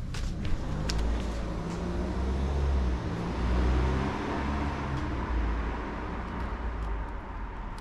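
A motor vehicle going past on the street: engine rumble and road noise swell to a peak about halfway through, then fade. A few light clicks sound near the start.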